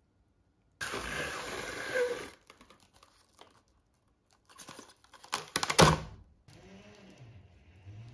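Plastic cling wrap pulled off its roll in a steady rasp about a second in, then torn across the box's cutter edge in a quick run of sharp crackles and smoothed over a glass bowl. Softer rustling and handling sounds follow.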